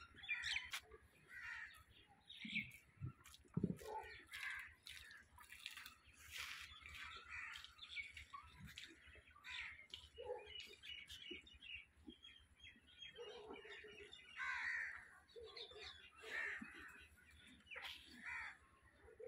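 Crows cawing again and again, with smaller birds chirping among them.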